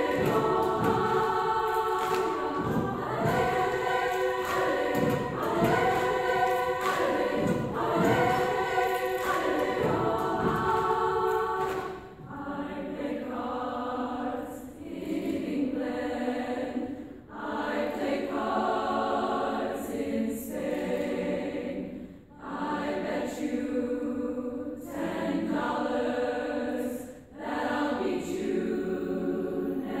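Women's choir singing. About twelve seconds in the sound thins to softer phrases with short breaks between them.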